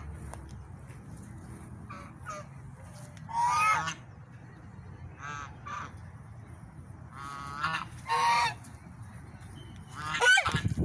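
Swans honking: separate loud honks about three and a half seconds in and twice around eight seconds, with fainter calls between and a louder, harsher burst near the end.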